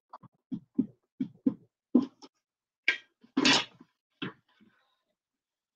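A metal curve ruler being handled, shifted and laid down on pattern paper: a series of short soft knocks and taps, with a longer scraping rustle on the paper about three and a half seconds in.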